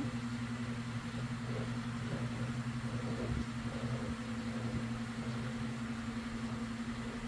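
Steady low machine hum, an even drone with a second higher tone above it and a light hiss.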